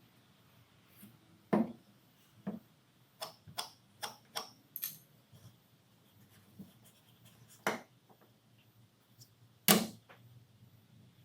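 Irregular sharp knocks and clicks of wood and hand tools being handled at a woodworking bench, about ten in all. The loudest comes about a second and a half in and another near the end, with a quick run of lighter taps between them.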